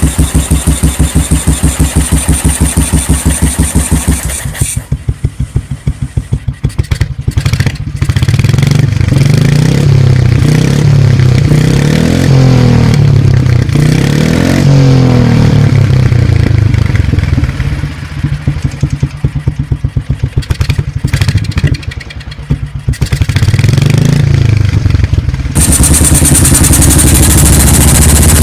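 BMW R25/3's single-cylinder four-stroke engine with a soft exhaust note. It runs with even, rapid exhaust beats, is revved up and down with the pitch rising and falling for most of the middle, then settles back to steady beats near the end.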